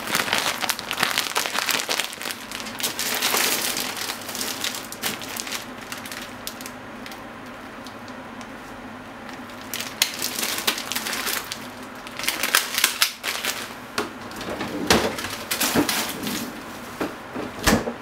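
Packaging being crinkled and crumpled by hand, in three spells of rustling with sharp clicks: at the start, about ten seconds in, and again near the end.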